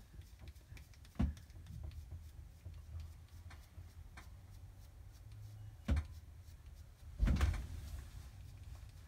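Three dull knocks over a low room rumble, about one second in, about six seconds in, and a longer, louder bump just after seven seconds.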